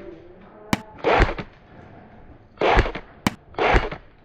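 Airsoft electric rifle firing three short bursts, about a second and a half apart, with two sharp single cracks between them.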